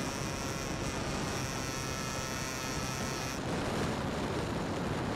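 Brushless electric motor and propeller of an E-flite Timber X RC plane in flight: a steady hum under wind rush, with a faint high whine that drops out about three and a half seconds in.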